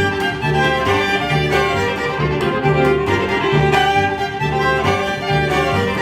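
Two fiddles playing a fast old-time fiddle tune together over an upright bass that keeps a steady beat of about two notes a second.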